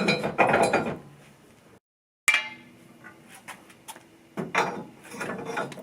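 Steel tire changer parts clanking and clinking as they are handled and set down. About two seconds in there is a sharp metal strike that rings briefly, then scattered clicks and a burst of clattering near the end.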